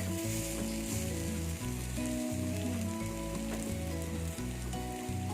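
Chicken pieces sizzling in hot oil in an appam pan, a steady frying hiss, under background music with a repeating bass line.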